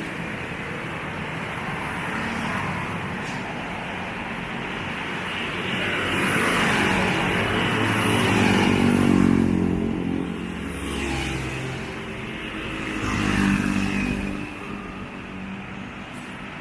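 Road traffic with engines running: vehicles passing by, one swelling louder about six to ten seconds in and another about thirteen seconds in.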